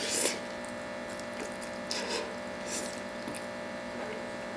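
A person slurping spicy instant noodles off a fork and eating: three short slurps, at the start, about two seconds in, and shortly after, over a steady electrical hum.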